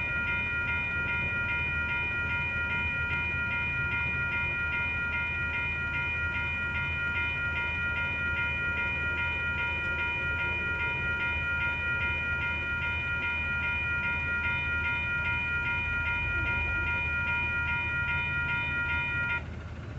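Railroad crossing warning bell ringing in a fast, steady repeat while the crossing lights flash, cutting off suddenly near the end.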